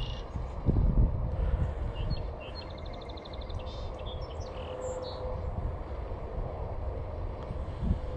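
Wind buffeting the microphone in uneven gusts, strongest about a second in. Small birds chirp over it, with a quick trill about two to three seconds in.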